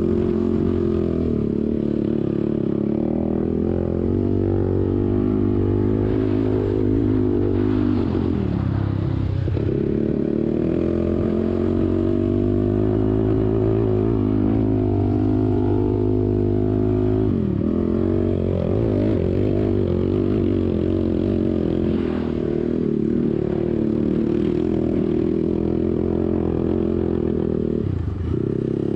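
ATV engine running under throttle while riding, its pitch dropping sharply and climbing back three times: about a third of the way in, past halfway, and near the end.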